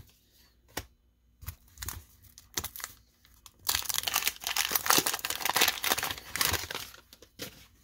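A few light clicks of cards being handled. Then, from about three and a half seconds in, the crinkling and tearing of a 1987 Fleer baseball card pack's wax-paper wrapper as it is ripped open and the cards are pulled out.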